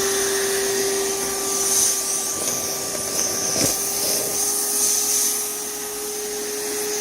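Small shop vac running with a steady motor whine as it sucks dust and debris out of a Roomba's bin, the debris clogging its intake. A brief rattle about three and a half seconds in marks debris being sucked through.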